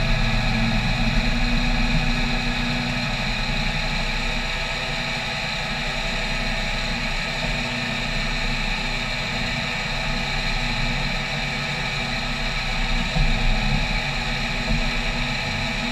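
Small CNC mill running a 2D adaptive milling toolpath: the spindle and end mill cutting a metal plate under flood coolant, a steady machine sound with several fixed tones, with a few louder moments near the end.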